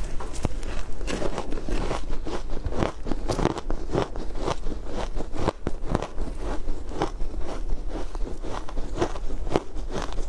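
Frozen shaved ice dusted with matcha powder being bitten and chewed: a dense, unbroken run of crisp crunches, several a second.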